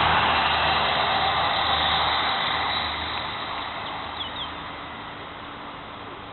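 Class 159 diesel multiple unit passing and drawing away, its diesel engine drone and rumble of wheels fading steadily.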